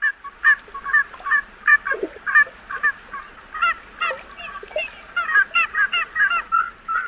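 A flock of geese honking: many short honks in quick, overlapping series, two or three a second, from several birds at once.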